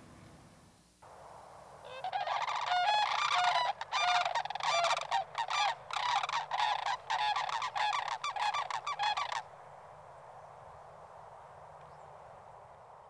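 Sandhill cranes calling: many calls in quick succession begin about two seconds in and stop abruptly about seven seconds later, leaving a faint steady background hiss.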